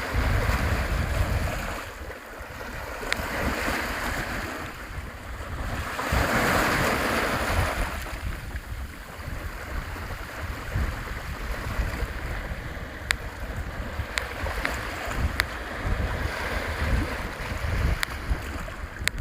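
Sea waves washing in, the noise swelling and falling every two to three seconds, with wind buffeting the microphone in a low rumble and a few faint sharp ticks later on.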